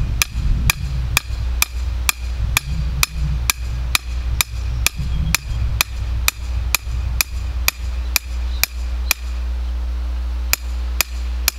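A hammer pounding a metal post into the ground, sharp ringing blows at about two a second, pausing briefly near the end before three more strikes.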